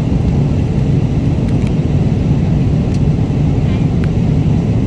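Steady, low airliner cabin noise in flight, with a few faint light clicks.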